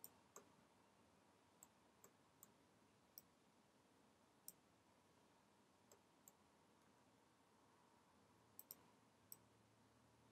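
Faint, irregular clicks of a computer mouse and keyboard, about a dozen single clicks over near silence.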